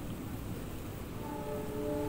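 Steady low rumble of wind on the microphone; about a second in, a held chord of background music comes in over it.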